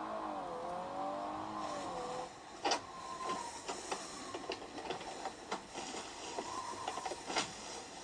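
A car engine running, its pitch dipping and rising for about two seconds as it drives, then stopping. After that, a string of sharp clicks and clunks with a few short tones, like controls being worked inside a car.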